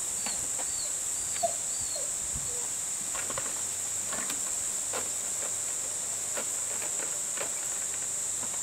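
Airedale puppy nosing among empty plastic bottles and milk cartons in a plastic paddling pool, giving scattered light knocks and clicks of plastic, over a steady high insect drone. A few short chirps sound in the first two seconds.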